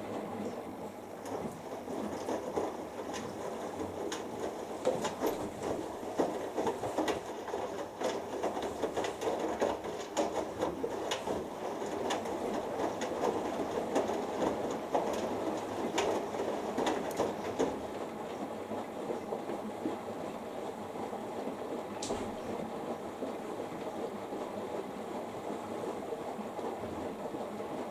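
Hoover Dynamic Next and Beko Pro AquaTech front-loading washing machines in their main wash, drums turning the laundry through water, with scattered sharp clicks in the first half that die down later.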